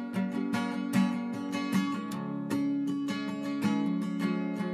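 Background music: a strummed acoustic guitar.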